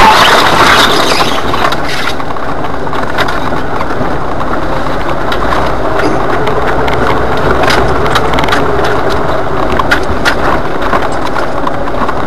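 Jeep Wrangler driving slowly over a rocky dirt trail, heard from inside the cab: the engine runs steadily under a constant rattle of the body and clicks and knocks of the tyres on loose stones. In the first second or so, brush scrapes loudly along the Jeep's sides and windshield.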